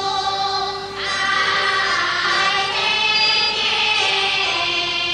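Teochew opera music: a melody in long held notes, shifting to a new phrase about a second in.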